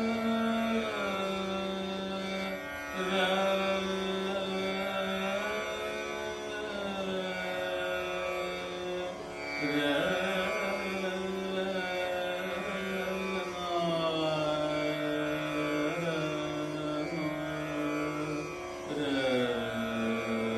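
Indian classical music: a melody of long held notes that slide from one pitch to the next, changing about every two to three seconds.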